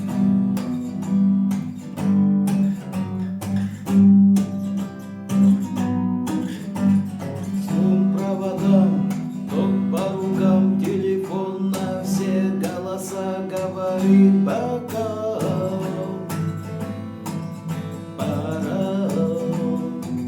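Instrumental song intro: acoustic guitar strumming a steady rhythm, with a melodic line joining over it about eight seconds in.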